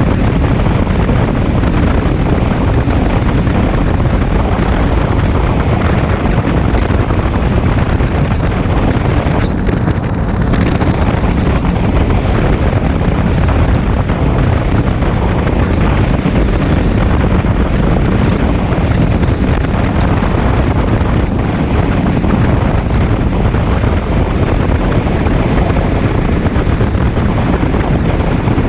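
ATV riding at steady speed: engine running under a loud, even rush of wind buffeting the microphone.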